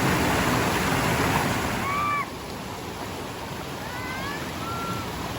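Steady rushing noise of running water that drops suddenly about two seconds in, with a few short, high chirps over the quieter part.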